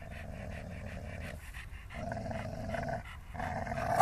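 Dogs panting hard while tugging on a stick, in stretches of a second or two with short breaks, getting louder near the end.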